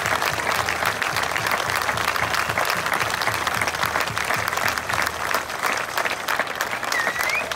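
Large crowd applauding steadily, with a short rising whistle near the end.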